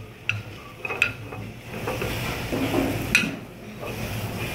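Metal ladle stirring sliced peppers, onions and mushrooms in a frying pan, with a few sharp clinks of the ladle against the pan, the loudest about three seconds in, over a low steady hum.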